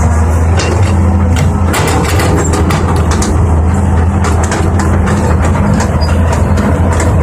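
Heavy engine of an excavator or dump truck running steadily with a constant low hum, overlaid by frequent irregular clicks and rattles.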